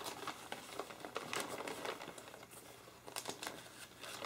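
A large folded paper target sheet being unfolded by hand, its creased paper crinkling and rustling on and off.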